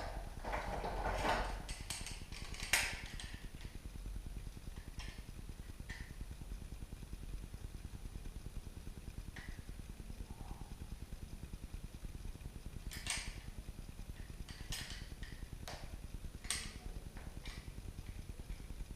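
Scattered small clicks and short rustles of hands fitting a stripped coaxial TV cable into a wall TV socket, over a steady low hum. The clicks bunch about a second in and again in a quick cluster near the end.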